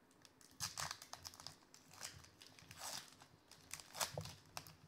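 Foil trading-card pack wrapper crinkling and tearing as it is pulled open by hand, in about five short bursts, the loudest near the end.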